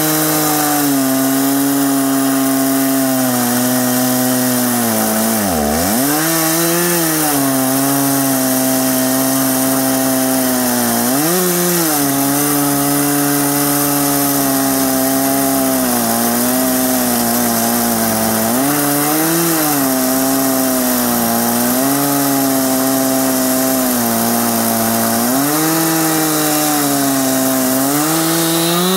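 Chainsaw engine running at full throttle in an Alaskan chainsaw mill, ripping a log lengthwise. Its pitch sags sharply about six seconds in and more lightly a few more times as the cut loads the engine, then recovers each time.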